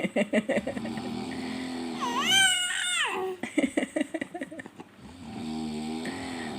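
A man snoring with a fluttering rattle, several snores in a row. A baby lets out a high, gliding squeal about two seconds in.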